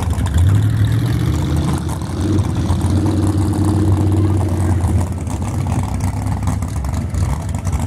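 A mud truck engine running with a steady low drone. It picks up slightly in pitch about half a second in, and again from about two seconds in until around five seconds.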